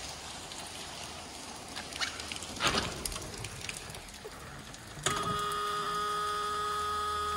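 A 1979 Mercedes-Benz 450SL's warning buzzer comes on suddenly about five seconds in and holds a steady, even tone as the key is turned on in the ignition. Before it there is rustling and a sharp knock about two and a half seconds in, from someone settling into the driver's seat.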